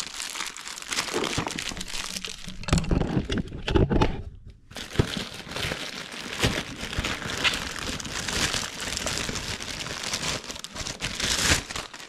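Plastic poly mailer bag crinkling and rustling as it is handled and opened by hand, with a brief pause about four and a half seconds in.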